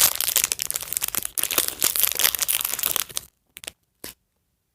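Small plastic blind bag being torn open and crinkled by hand, a dense crackling that stops about three seconds in, followed by a couple of faint clicks.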